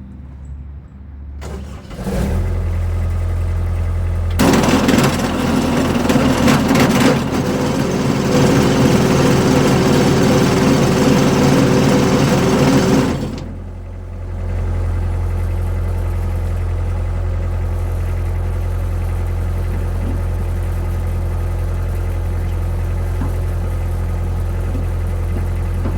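Kubota F3060 tractor's diesel engine running. About four seconds in it gets much louder, with a broad rushing noise over the engine for about nine seconds, then drops back to a steady run.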